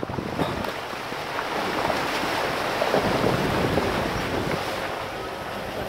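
Rushing noise of an off-road vehicle moving slowly along a forest dirt track, swelling in the middle and easing off near the end.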